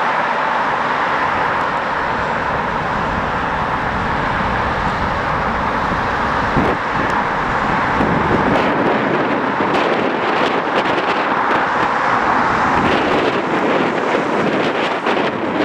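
Steady jet roar of a landing Boeing 747, its low rumble dropping away about eight seconds in. Gusty wind buffets the microphone through the second half.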